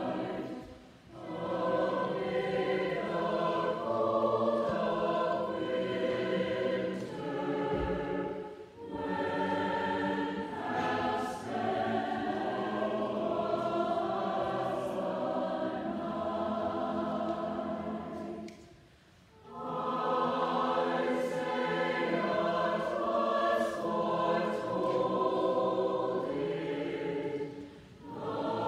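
Mixed choir of men's and women's voices singing in long sustained phrases, with a few short breaks between phrases, the longest about two-thirds of the way through.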